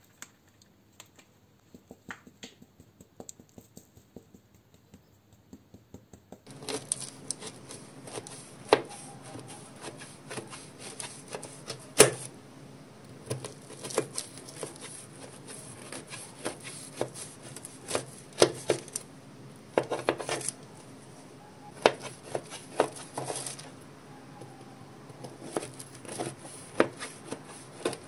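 Faint light ticks of powdered sugar being sifted through a mesh sieve, then a knife cutting a crumb-topped baked tart: irregular crunches and sharp clicks as the blade breaks through the crumbly crust and meets the pan beneath, over a low steady hum.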